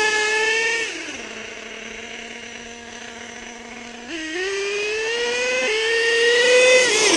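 Small nitro glow engine of a radio-controlled truck running at high revs, then dropping to a steady idle about a second in. About four seconds in it revs up again, its pitch climbing as the truck accelerates, with a brief dip part way, and it backs off near the end.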